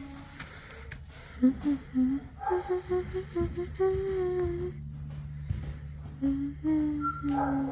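A person humming a slow, wordless tune in short and held notes, over a steady low drone.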